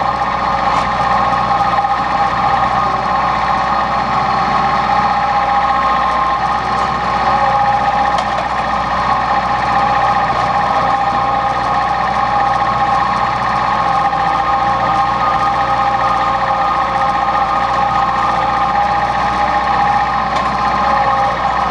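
John Deere 110 backhoe's diesel engine running steadily under work.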